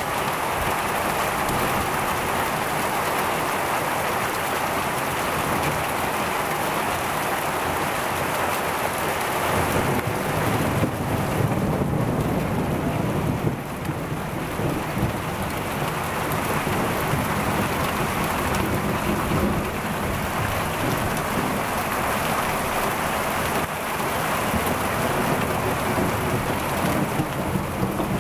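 Torrential rain mixed with hail pouring down in a steady, dense hiss. A deeper low rumble swells in for several seconds about ten seconds in.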